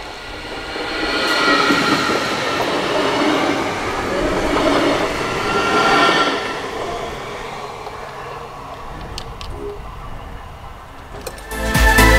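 A train passing, swelling to its loudest about two and six seconds in and then fading away, with several steady high tones over its rumble. Background music comes in just before the end.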